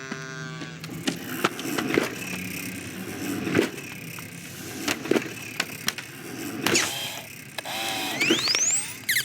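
Animated-film sound effects: a run of light knocks, taps and clatters, with a short falling tone at the start and a quick rising squeak about eight seconds in.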